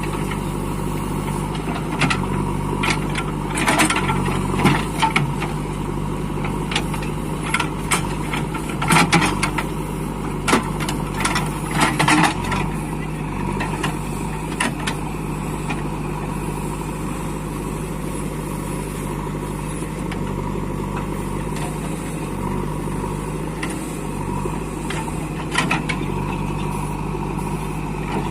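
JCB 3DX backhoe loader's diesel engine running steadily as it works. Scattered sharp knocks and clanks come in the first half and again near the end.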